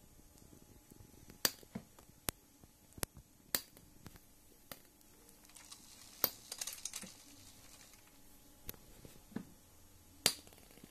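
Sharp, irregular clicks and snaps, roughly one a second, with a brief crackle about six seconds in, over a faint steady hum.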